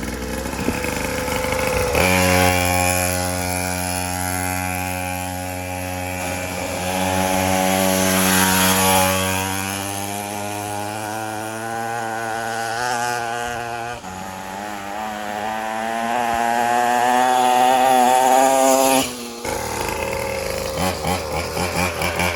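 Mini moto's small single-cylinder engine running while ridden. The engine note comes in sharply about two seconds in and holds, then climbs as the engine revs up, dips once and climbs again before cutting off suddenly about three seconds before the end.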